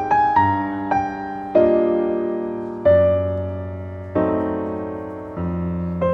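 Background piano music: notes and chords struck about once a second, each left to ring and fade before the next.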